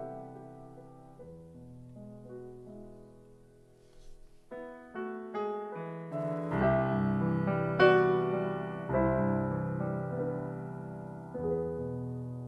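Slow background piano music. Soft notes thin out almost to nothing about four seconds in, then fuller chords come in and swell.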